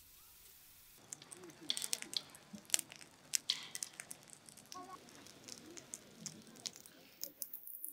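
Split firewood crackling and popping as it burns in a metal fire pit, with irregular sharp snaps starting about a second in.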